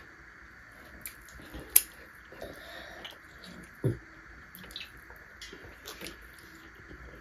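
Close-up wet eating sounds as rice is eaten by hand: chewing, lip smacks and small clicks, over a faint steady hiss. A sharp click about two seconds in is the loudest, with a duller thud near four seconds.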